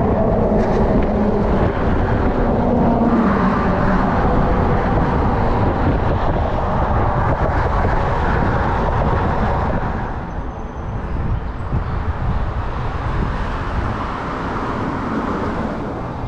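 Wind buffeting the microphone of a moving e-bike, with road traffic passing alongside. The wind noise eases a little about ten seconds in.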